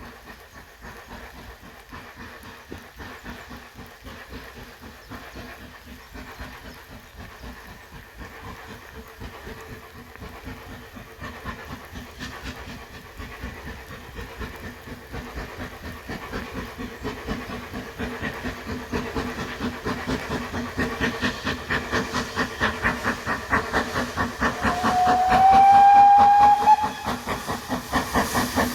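A steam locomotive approaching with a rapid rhythmic beat that grows steadily louder. Near the end its whistle sounds once for about two seconds, the pitch rising slightly.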